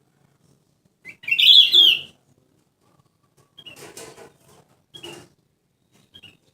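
Kutilang emas bulbul chattering in short bursts. A loud, quick chirping phrase about a second in is followed by three shorter, quieter calls.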